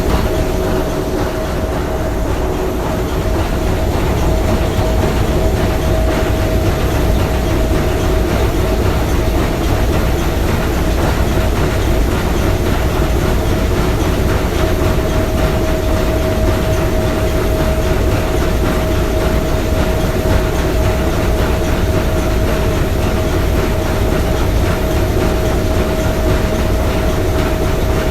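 Three-cylinder triple-expansion marine steam engine running steadily: a loud, even mechanical noise over a low rumble, with a steady tone standing above it.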